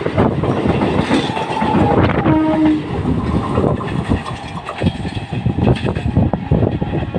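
Electric multiple unit local train passing close by, its wheels clattering over the rails, with a short horn note about two seconds in.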